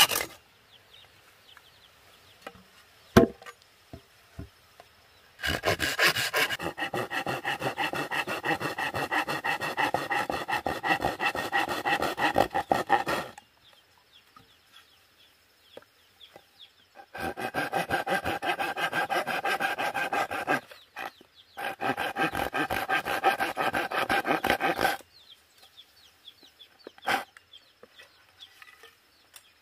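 Folding pruning saw cutting through a bamboo pole in quick back-and-forth rasping strokes, in three runs: a long one of about eight seconds, then two of about three and a half seconds each. A sharp click sounds a few seconds in and another near the end.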